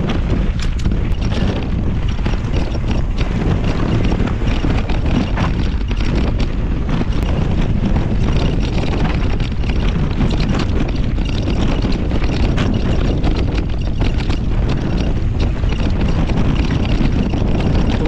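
Wind rushing over the microphone of a camera riding on a mountain bike at speed down a dirt singletrack, with many small clicks and rattles from the tyres and bike over stones and roots.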